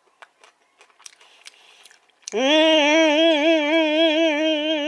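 A man chews a mouthful of bone-in raw gizzard shad slices, with faint small crunchy clicks. About two seconds in, he lets out a long, wavering, drawn-out 'mmm' of delight that is held for about three seconds and is the loudest sound.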